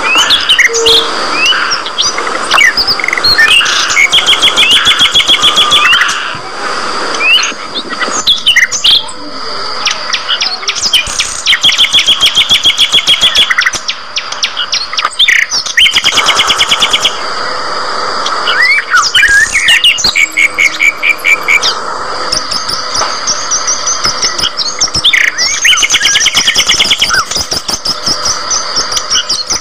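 Budgerigars chirping and chattering continuously, with several runs of fast, evenly repeated pulsed calls lasting a second or two each.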